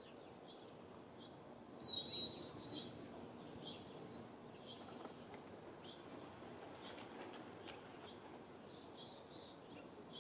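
Small songbirds chirping: short high chirps about once a second, with a louder call about two seconds in that drops in pitch and then holds, a shorter call about four seconds in, and another near the end, over a faint steady background hiss.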